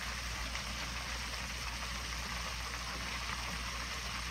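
Steady background hiss with a low hum underneath, with no distinct event: room tone.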